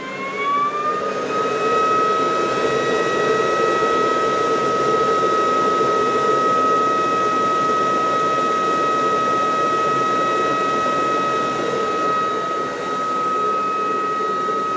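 LG CordZero Cyking (C3) cordless vacuum cleaner, with a smart inverter motor, running: the motor finishes spinning up in the first second, then holds a steady high whine over the rush of air.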